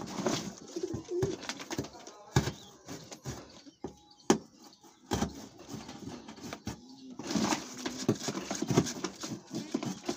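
Pigeons cooing, strongest in the last few seconds, over hands handling and pressing down a taped cardboard box. Several sharp knocks on the box, the loudest about four seconds in.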